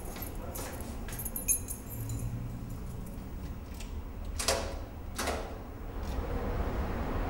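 Metal keys jingling with light, high tinkles and a sharp click, followed by two louder scraping clacks about four and a half and five seconds in.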